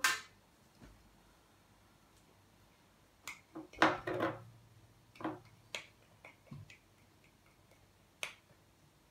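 Scattered light clicks and taps of a small plastic glue pot and stirring stick against a plastic bowl as glue is scooped out, about ten in all, the loudest cluster about four seconds in.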